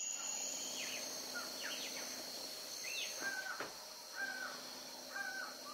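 Dawn birdsong over a steady high insect drone: a few short falling bird notes, then a bird repeating a short call about once a second.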